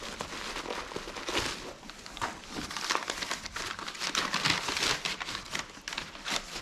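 Packing paper being crumpled and rustled by hand as a box is unpacked, an irregular crackling rustle with many short sharp crinkles.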